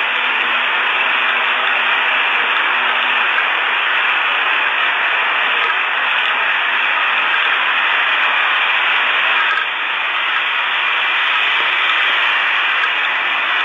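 Loud, steady static-like hiss with no distinct events and a brief dip about ten seconds in.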